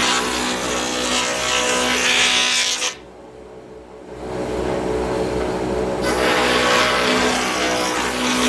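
Bench-mounted wood router running and cutting into wood: a steady high whine with rough cutting noise. It drops away sharply about three seconds in and builds back up over the next couple of seconds.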